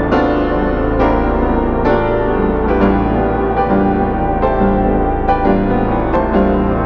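Background music led by piano, with a steady low bass note and new chords about once a second.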